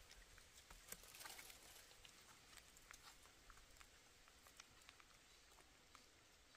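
Near silence, with faint scattered ticks and a short rustle about a second in.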